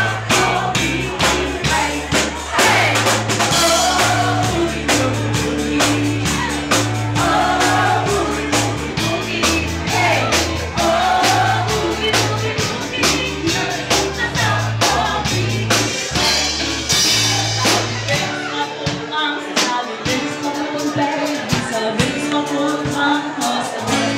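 Live band playing boogie-woogie: a walking bass line under drums, guitar and singing. About eighteen seconds in the bass drops out while the drums keep going.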